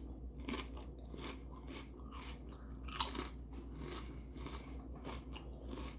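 Close-up mouth sounds of a person chewing a mouthful of hot dog with sauerkraut: wet, irregular chewing and smacking clicks, with one sharp louder click about halfway through.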